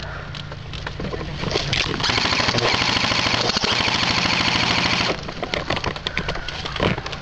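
Airsoft rifle firing one continuous full-auto burst of about three seconds, a fast, even rattle that starts about two seconds in and cuts off sharply.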